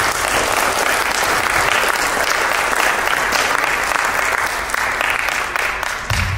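Audience in a hall applauding at the close of a lecture, a steady clapping that starts to die away near the end.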